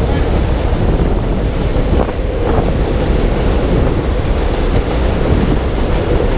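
Steady rushing wind on the microphone and rolling road noise from a bicycle being ridden on wet streets in the rain, with a few faint high squeaks.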